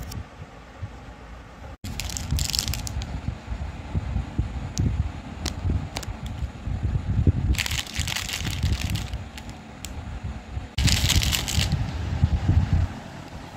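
Plastic candy wrappers crinkling as they are handled, in three short bursts, over low thumps of hands moving the packets.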